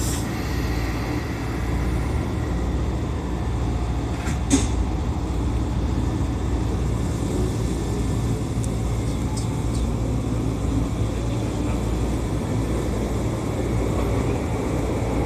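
Keisei Chihara Line commuter train running along the track, heard inside the car behind the driver's cab: a steady low rumble, with one sharp click about four and a half seconds in.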